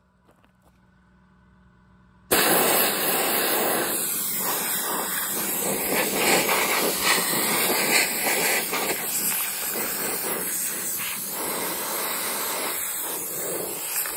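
Harbor Freight gravity-feed hand-held blast gun spraying regular baking soda on compressed air against a steel wheel, soda blasting off dirt and rust: a loud, steady hiss that starts abruptly about two seconds in.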